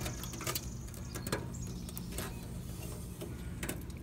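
A few light clicks and knocks, about one a second, as a headlight assembly is handled and pulled away from its bucket, over a steady low hum.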